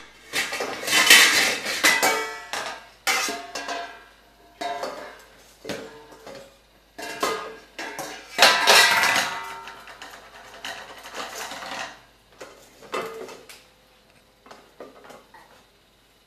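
Stainless-steel mixing bowls and a pot being banged and clattered together by a toddler, each clang ringing on briefly. The loudest clashes come about a second in and again around eight seconds, and the clatter thins out near the end.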